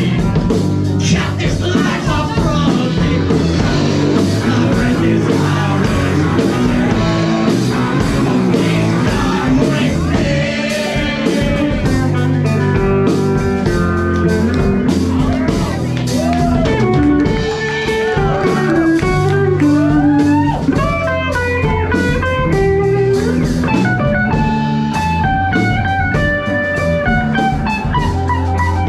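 Live rock band playing: drum kit, bass and electric guitars, with a lead melody line that bends up and down in pitch.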